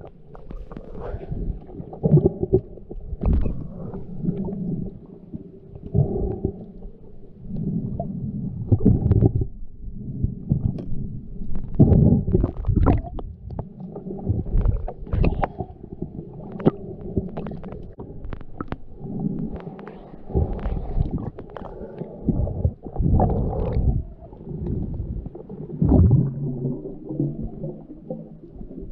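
Muffled water sound heard through an underwater camera's housing: low rumbles and gurgling surges that come and go every second or few, with scattered faint clicks, as the swimmer moves through the water.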